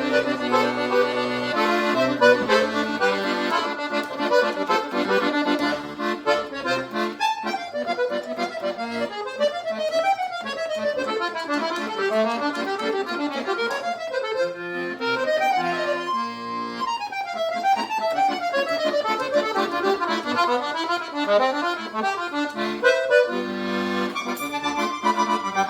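Accordion (sanfona) playing a baião-style tune over a band of bass, drums and light percussion. Held chords near the start and end frame a long middle passage of quick runs of notes climbing and falling.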